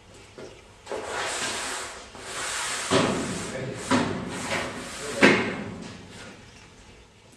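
A Hovair air-caster beam being slid across the floor and worked into place under a shop gondola shelving unit: a rushing scrape with three sharp knocks about three, four and five seconds in, the last the loudest.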